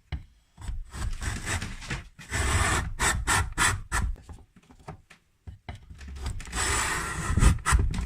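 Wood being worked by hand, with irregular rubbing and scraping strokes in two main bouts and short pauses between them.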